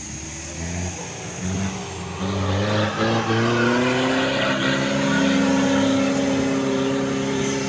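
Mitsubishi Pajero's engine revving hard under load as the 4x4 climbs a steep soft-sand hill. The pitch rises over the first few seconds, then holds high and steady.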